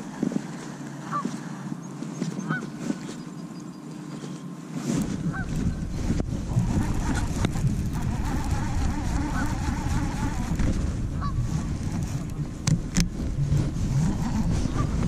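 Geese honking in the distance, short calls repeated every second or two. A low rumble comes in about five seconds in and stays under the calls.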